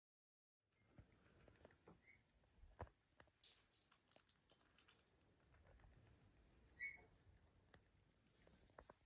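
Near silence with faint scattered small taps and clicks and a few faint short high peeps: a gosling pecking and peeping softly.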